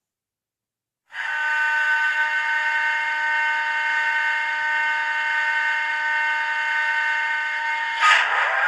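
Model locomotive's DCC sound decoder playing a British Rail Class 60 diesel recording through its small speaker: a steady, whining, many-toned sound cuts in abruptly about a second in. Near the end there is a sudden burst, and the pitch starts to shift.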